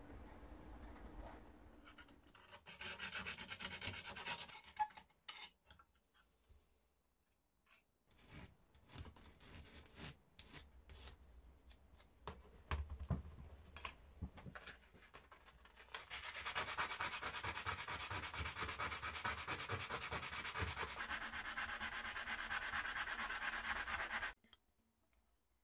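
Thin sheet metal being shaped by hand with a hand file and abrasive: scattered separate file strokes, then about eight seconds of fast, steady rubbing that stops abruptly near the end.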